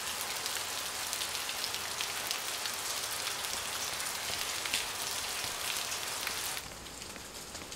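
Heavy rain falling, a steady hiss with scattered sharp drop splashes; about six and a half seconds in it turns quieter and duller.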